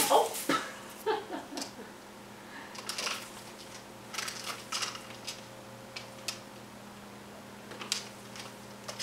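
A kitten's claws scratching and clicking on a palm tree trunk as it climbs, with the fronds rustling: scattered small clicks and scrapes, some in quick clusters.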